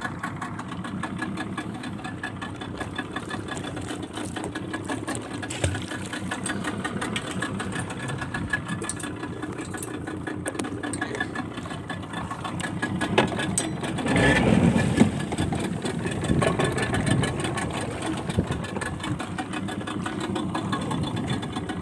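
Fishing boat's engine running steadily at low revs with a fast, even chug. About two-thirds of the way through, a louder rush of noise rises over it for a second or two.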